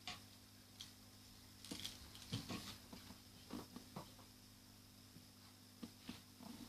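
Near silence with a low steady hum and a few faint, scattered small clicks and soft taps.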